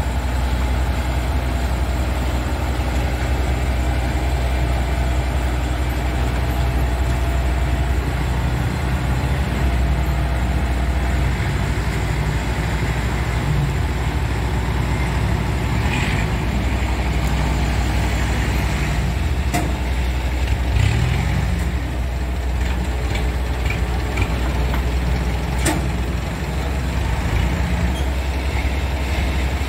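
Kubota DC105X combine harvester's diesel engine running steadily as the tracked machine drives onto a boat, with a few sharp metallic knocks about two-thirds of the way through and again a little later.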